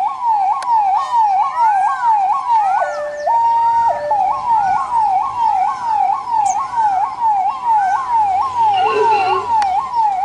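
Ambulance electronic siren sounding in a fast repeating yelp, about two and a half sweeps a second. About three seconds in it switches briefly to a two-tone hi-lo before returning to the yelp.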